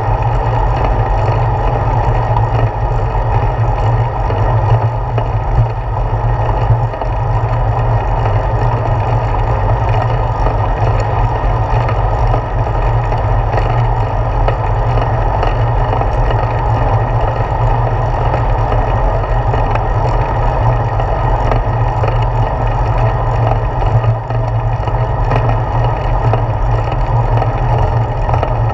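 Steady wind noise and road rumble from a bicycle rolling along, picked up by a handlebar-mounted GoPro Hero 4.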